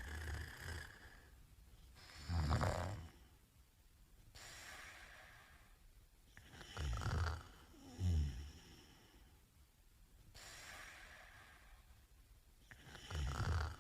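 A sleeping man snoring: loud, low snores come about every five seconds, two of them in quick succession in the middle, with quieter breathy breaths in between.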